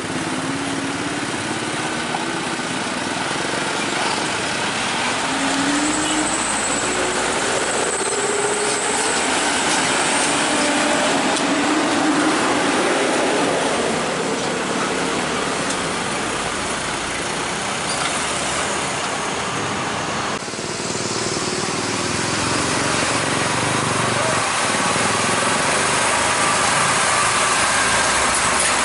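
Diesel engines of heavy trucks pulling across a railway level crossing, over steady traffic noise. In the first half the engine note rises several times as a truck accelerates. The sound changes abruptly about two-thirds of the way in.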